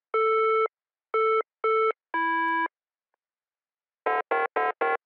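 Beeping chiptune-style synthesizer jingle: a long beep, two short beeps at the same pitch, then a long lower beep. After a pause of about a second, a quick run of short beeps starts near the end, about four a second.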